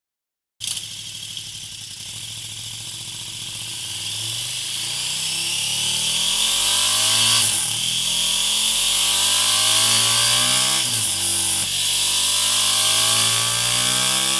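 KTM 1290 Super Duke GT's V-twin engine running through its stock exhaust, cutting in abruptly just under a second in. The revs climb, drop sharply and climb again about three times.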